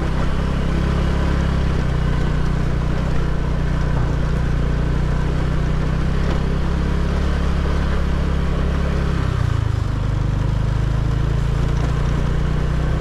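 Motorbike engine running steadily with a low hum; its note dips and changes about ten seconds in.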